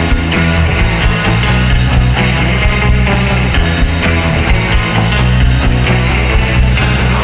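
Lo-fi garage punk rock song: electric guitar over drums keeping a steady beat.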